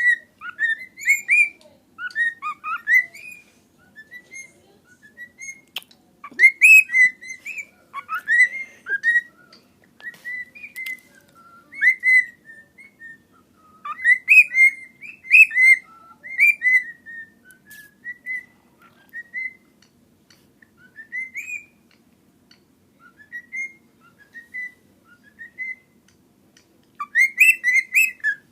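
Pet bird whistling a song of short, clear notes that slide up and down, in phrases separated by brief pauses.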